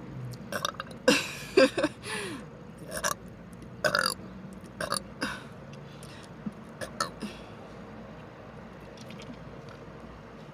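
A woman burping several times in quick succession, the loudest burps about a second in, then a few fainter short sounds.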